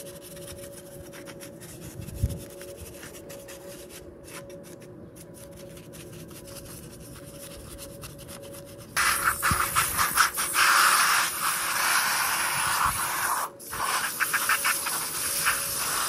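A brush faintly scrubbing a greasy manual-transmission shifter assembly. About nine seconds in, an aerosol foam cleaner starts spraying onto it with a loud hiss, stops for a moment, then sprays again while the brush scrubs in quick strokes.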